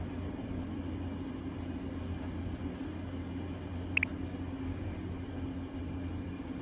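A steady low hum, with a brief high double chirp about four seconds in.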